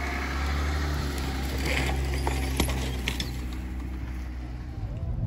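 A Jeep four-wheel drive towing an off-road caravan rolls slowly past on a dirt bush track, its engine running with a steady low hum. Tyres crunch over gravel and twigs, with a few sharp clicks near the middle.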